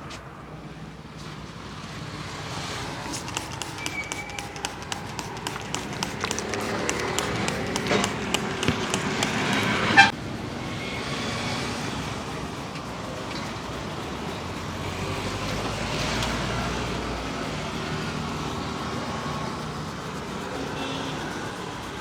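Rapid rhythmic hand taps and slaps on a head during a barber's head massage, coming faster and louder over several seconds and ending in one sharp, loud hit about ten seconds in. Road traffic runs behind, with an occasional horn.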